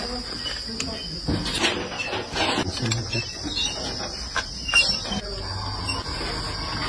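Scattered clinks, knocks and scrapes of metal hand tools, a spanner and a scraper, working on the bolted metal lid of a drum, over a steady high-pitched tone.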